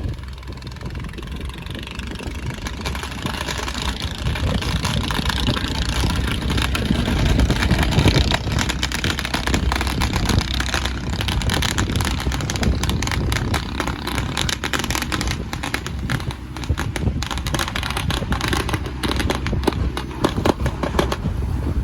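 Wind buffeting the microphone with the run of a boat's engine and water noise underneath, with frequent crackles from the gusts.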